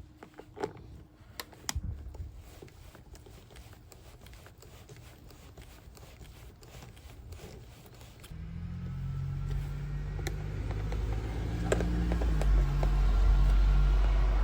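A few light clicks, then about eight seconds in a motor vehicle's engine rumble comes in, low and growing louder toward the end, its pitch shifting in steps.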